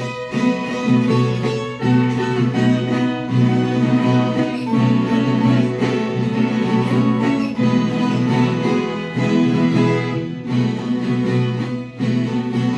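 Instrumental introduction to a Brazilian moda de viola, plucked on viola caipira with acoustic guitar, before the singing comes in.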